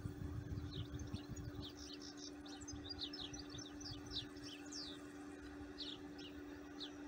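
Small songbirds chirping: a rapid scatter of short high calls, busiest from about two to five seconds in. Under them is a steady low hum, with some low rumbling near the start.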